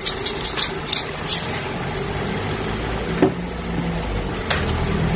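Chicken cooking in a pot on a stovetop: a steady low hum under a faint hiss, with a run of sharp clicks or crackles in the first second and a half and single clicks about three and four and a half seconds in.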